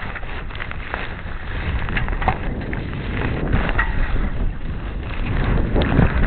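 Wind rushing across the microphone on a small sailboat under sail, with choppy water splashing along the hull; the rumble grows louder near the end.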